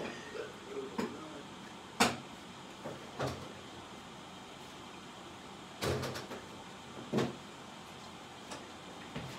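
A string of irregular knocks and clunks, like household things being handled or a cupboard or door being worked, with the sharpest knock about two seconds in and a short cluster of clunks about six seconds in.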